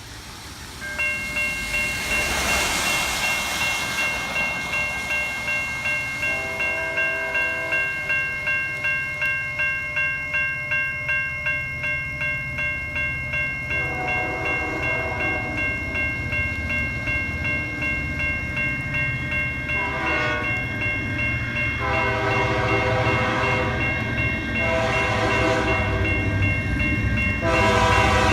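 Norfolk Southern EMD diesel locomotives approaching with the bell ringing steadily from about a second in and the air horn sounding a long blast followed by several shorter ones, over a low engine rumble that grows louder near the end.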